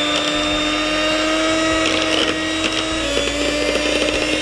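Electric mixer running at a steady speed, whipping powdered sugar and egg white into glaze, with brief rattling of the beaters about three seconds in.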